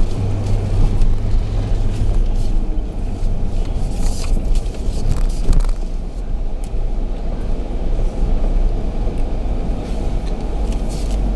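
Cabin sound of a Jeep Grand Cherokee Overland crawling in four-low over a dirt trail: a steady low engine and tyre rumble, with a few short knocks and rattles from the bumps, mostly around the middle. A low hum in the first two seconds is the power steering groaning as the wheel is worked.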